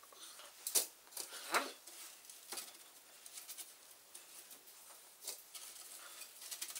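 Coarse salt crunching and pattering as fingers dig through it to lift salt-cured trout fillets out, with loose grains falling back into a glass dish; a few louder crunches come in the first two seconds.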